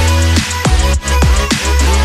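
Electronic background music with a heavy bass line and repeated falling synth notes.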